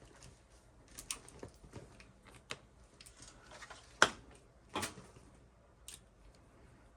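Test leads and connectors being handled and set down on a workbench: a scatter of light clicks and clatters, with one sharper knock about four seconds in and another shortly after.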